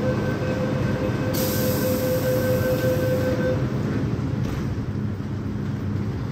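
MTR M-Train electric multiple unit, steady running rumble with a thin steady whine that stops about three and a half seconds in. A high hiss sounds from about a second in for about two seconds.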